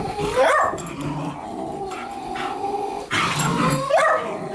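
A Weimaraner puppy and a beagle play-fighting: growling and drawn-out whining cries, which rise sharply in pitch about half a second in and again near the end.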